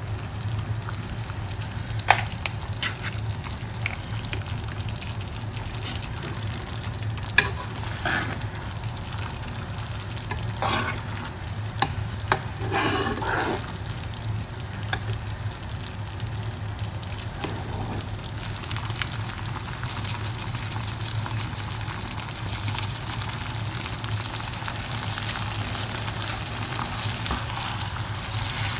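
Tomato sauce with meatballs sizzling in a nonstick frying pan, with a wooden spatula and metal tongs stirring and knocking against the pan in scattered clicks. The sizzle turns sharper and hissier about two-thirds in, as the spaghetti is tossed through the sauce.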